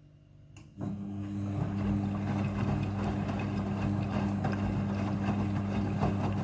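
Front-loading washing machine starting up about a second in after a click, then running with a steady hum and a rushing wash of noise during its rinse cycle.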